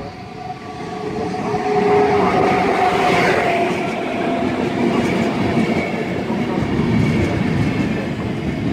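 EU44 Husarz electric locomotive and PKP Intercity coaches running past along the platform. The sound grows over the first two seconds, with a thin whine as the locomotive draws near, then gives way to a steady rumble of coach wheels on the rails.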